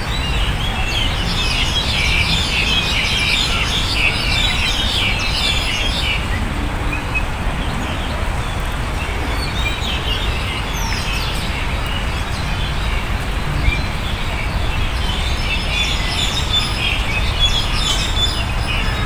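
A crowd of small birds chirping and calling in the park trees, many short chirps overlapping, busiest for the first six seconds and again near the end, over a steady low rumble.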